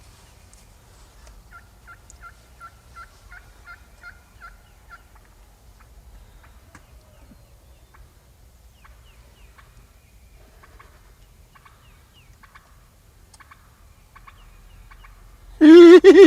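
A wild turkey gobbler gobbling loudly at close range near the end, one wavering call about a second long. Before it, a long quiet stretch with a faint series of short high chirps, about three a second, for a few seconds near the start.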